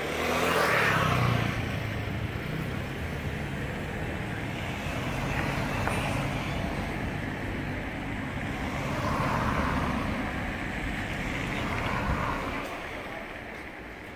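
Road traffic: a steady rumble with several cars passing, the loudest right at the start.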